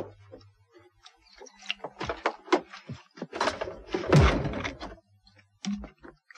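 A refrigerator door being opened and glass milk bottles handled: a series of short knocks and clinks, with a heavier thud about four seconds in.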